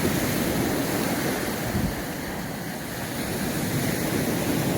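Sea surf washing onto the beach in a steady rush, with wind buffeting the microphone.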